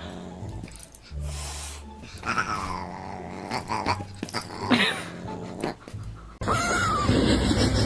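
Pet dog vocalising over background music. About six and a half seconds in the sound changes abruptly to a louder, busier scene with two short calls that rise and fall in pitch.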